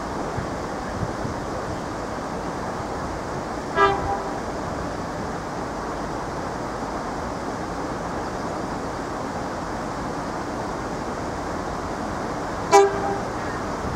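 Horn of an approaching Irish Rail 22000 class Intercity DMU, two short toots about nine seconds apart, the second louder as the train nears the level crossing, over steady wind noise.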